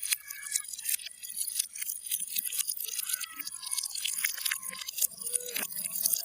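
Water splashing and trickling, a dense, irregular crackle of small drops.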